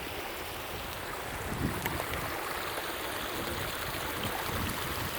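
Fast water from a beaver dam's overflow rushing over rocks in rapids and small falls, a steady even rush.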